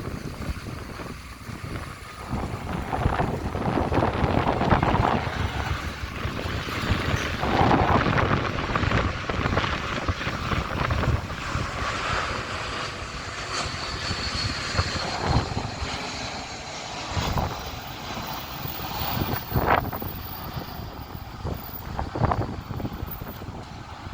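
Airbus A321 jet engines running, with a faint high whine swelling about halfway through, mixed with gusty wind buffeting on the microphone.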